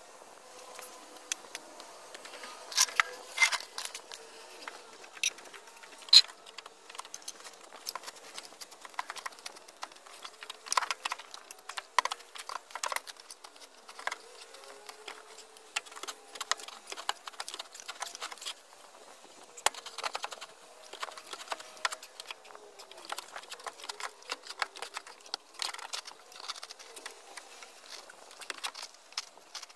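Irregular scraping and clicking of loose soil and small stones being dug and scooped out of a trench with a plastic hand scoop and spade, with a few sharper knocks.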